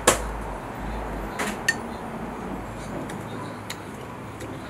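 A few sharp clinks of metal chopsticks against dishes: the loudest right at the start, two more about a second and a half in, and a faint one near the end.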